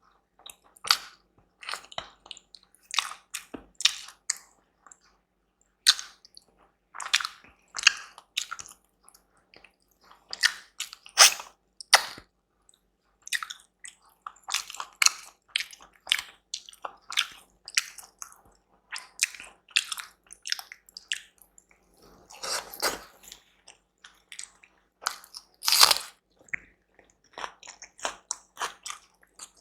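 Close-miked eating sounds: a series of irregular bites and chews on food, some louder than others, with short pauses between.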